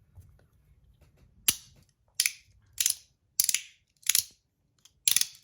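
Three-piece PEI slider fidget fitted with ceramic balls, slid back and forth and snapping into place: six sharp, higher-pitched clicks spaced about half a second to a second apart.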